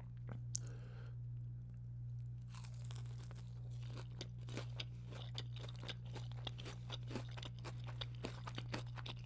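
Close-miked chewing of a breaded chicken tender, the crisp coating crunching in many small rapid clicks from about two and a half seconds in, over a steady low hum.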